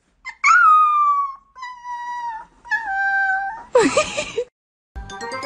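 Puppy howling: three drawn-out, high howls of about a second each, the pitch sagging or stepping down within each, then a shorter, rougher cry with quick rises and falls about four seconds in. Music comes in near the end.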